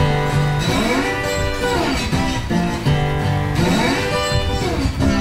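Background music led by guitar, with a melody line that glides up and back down in pitch again and again.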